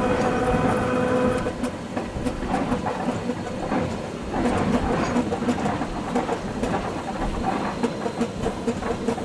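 Train running along the track, heard from the driver's cab, with a rhythmic clatter from the wheels on the rails. A steady pitched hum stops about a second and a half in.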